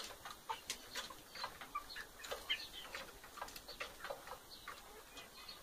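Chickens pecking at feed, a scatter of light, irregular taps, with a few short, soft clucks.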